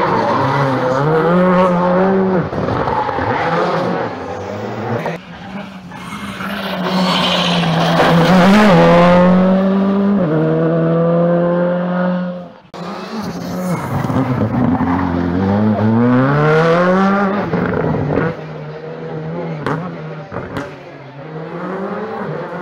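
Rally car engines at full throttle, revving up through the gears in repeated rising sweeps, with some tyre squeal as the cars slide. The sound cuts off abruptly about twelve seconds in and another car comes in revving hard.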